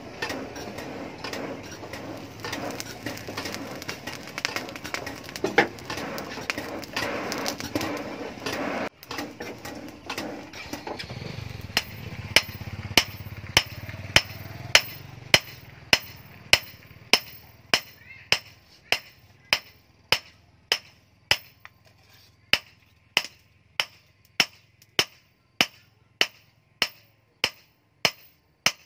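A charcoal forge fire gives a steady rushing noise with crackling for about the first nine seconds. From about twelve seconds in, a hand hammer forges a red-hot steel billhook blade on a post anvil: sharp ringing blows in a steady rhythm, about three every two seconds.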